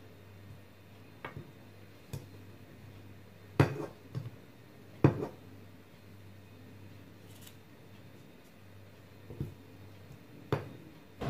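Scattered knocks and taps of a plastic measuring spoon against a metal muffin tin while coconut macaroon mixture is spooned into paper liners, the two loudest about three and a half and five seconds in, over a faint steady low hum.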